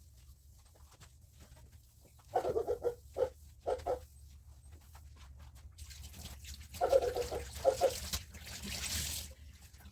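A dog whining in short pitched bursts, in two groups a few seconds apart. A hiss like running water comes in about two thirds of the way through and stops shortly before the end.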